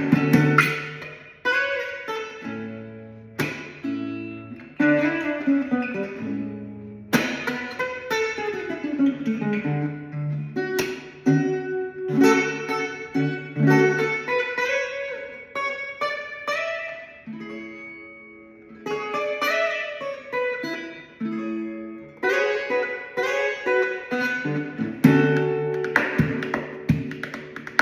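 Solo guitar playing a melodic passage in the key of A: single plucked notes that ring and fade, some sliding in pitch, mixed with strummed chords.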